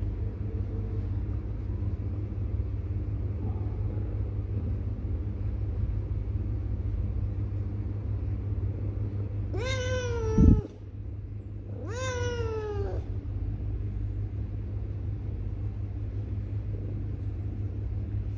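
A cat meowing twice near the middle, two drawn-out meows that fall in pitch, about two seconds apart. A sudden low thump, the loudest sound, comes at the end of the first meow.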